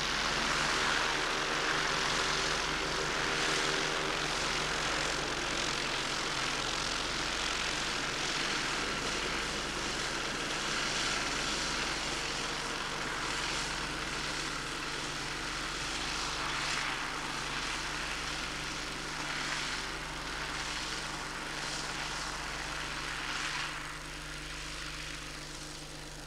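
Ultralight aircraft's Konig SD-570 four-cylinder two-stroke engine and three-bladed wooden propeller running steadily as the plane taxis on grass, a little quieter for the last couple of seconds.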